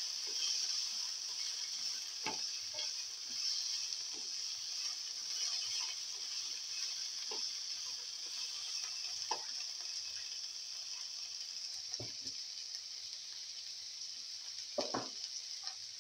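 Tomato pieces with onion and fenugreek leaves sizzling in oil in a frying pan while a spatula stirs them, with a few sharp spatula knocks and scrapes against the pan, the loudest near the end.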